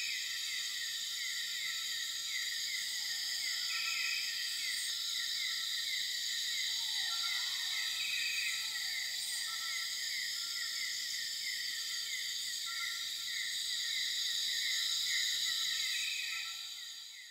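A steady chorus of night insects such as crickets, with a rapid pulsing trill over a continuous high shimmer. A few soft, brief calls rise and fall lower down. It fades out at the very end.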